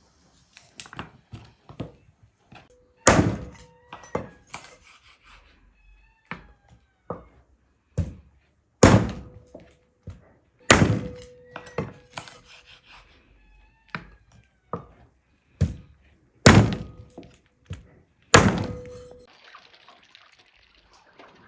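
A heavy knife chopping meat on a wooden cutting board: a series of loud, sharp thunks at irregular intervals, several followed by a short ringing tone.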